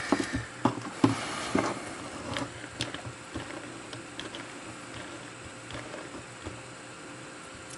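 Light metal clicks and clatter from a small three-jaw lathe chuck as a steel jaw is pushed into its slot and the chuck key is turned to catch the start of the scroll thread. The clicks come thick in the first few seconds, then thin out to an odd tick over faint handling noise.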